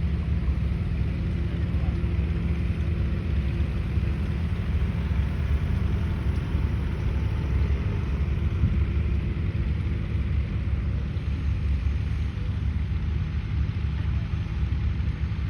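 Tractor engine running steadily, a low continuous rumble with a faint steady hum.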